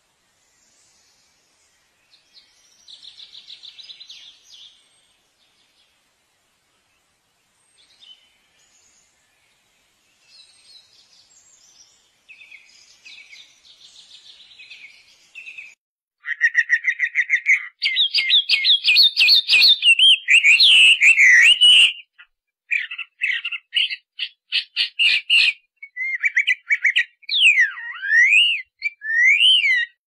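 Birds chirping and whistling. Faint, scattered chirps in the first half give way about halfway through to loud, rapid trills and chirps. Near the end come whistles that sweep up and down.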